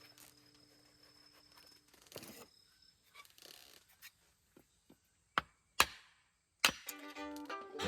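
Faint rustling and handling noise, then three sharp knocks of something hard struck, about five and a half to seven seconds in.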